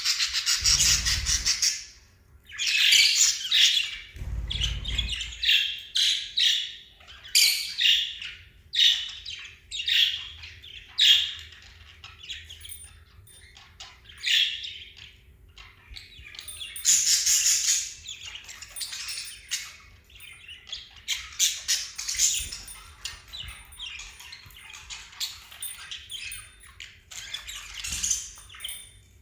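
A flock of small pet parrots such as lovebirds and budgerigars chattering and squawking with many short, shrill calls. There are two low rumbles, near the start and about four seconds in.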